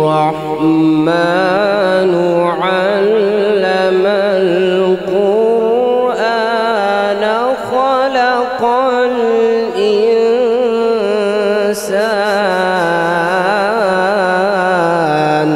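A male qari reciting the Quran in the long, drawn-out melodic style of tilawat into a microphone. His voice wavers through ornamented runs, with short breaks near a third of the way in and again toward the end.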